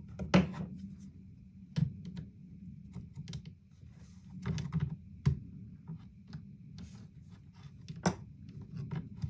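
Chainsaw parts being handled during reassembly: irregular small clicks and taps, with sharper knocks about half a second, two, five and eight seconds in.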